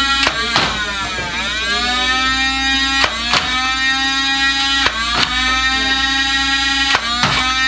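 Flywheel motors of a Nerf Alpha Strike Flyte CS-10 blaster held revved with a steady whine. Darts are fired in quick pairs of clicks about every two seconds, and the whine dips in pitch and climbs back as the wheels recover.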